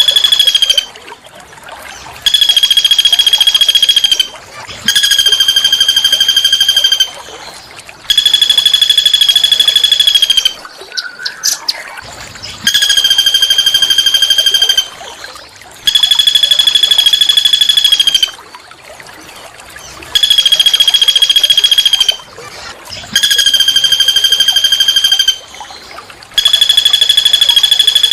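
A small songbird's harsh, buzzy call: one steady rattling note about two seconds long, repeated about eight times with short pauses between.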